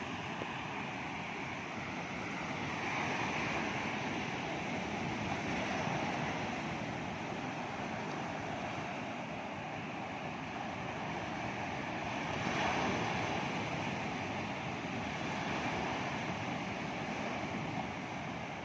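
Ocean surf on Java's south coast breaking continuously, surging louder every few seconds as waves come in, with wind noise on the microphone.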